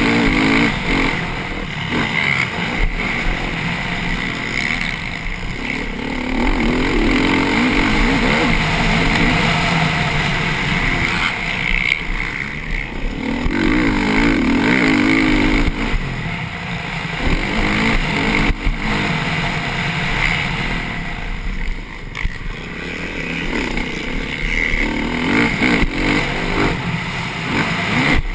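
Motocross bike engine under race throttle, revving up and dropping back again and again as the rider accelerates and rolls off, with a short lull about two thirds of the way through.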